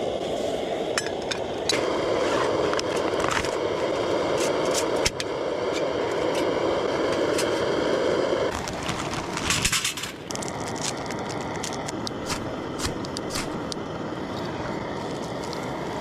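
Camp cooking gear being handled, with repeated light clinks, knocks and scrapes and some crackling, over a steady rushing noise that cuts off about halfway through.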